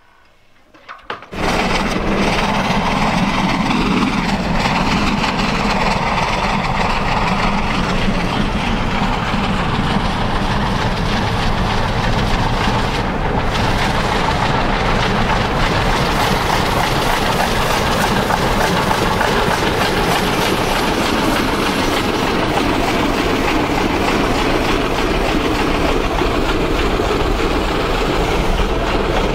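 Steady loud rush of wind and road noise, heard from a car driving alongside a moving steam-hauled train, with the train's running sounds mixed in. It starts abruptly about a second in and keeps an even level.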